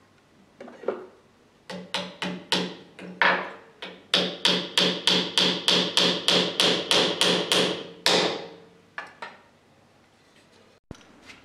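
Hammer striking wooden strips of a homemade frame: a few spaced blows, then a fast even run of about four to five strikes a second, then a couple of lighter taps near the end.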